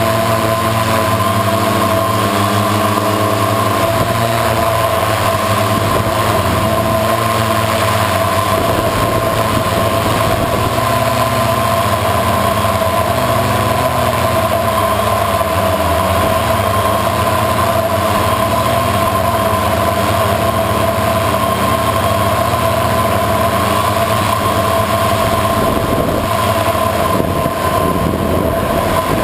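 Multirotor drone's electric motors and propellers running steadily in flight, heard from the craft's onboard camera: a loud, even whine with two steady tones over a rushing hiss.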